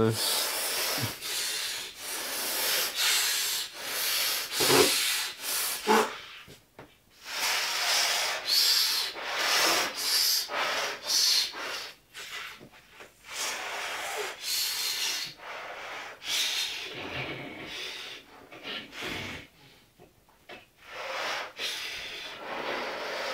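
A man breathing in and out of a rubber balloon of laughing gas (nitrous oxide): repeated airy, hissing breaths with the rubber rubbing against his lips and hands, broken by brief pauses.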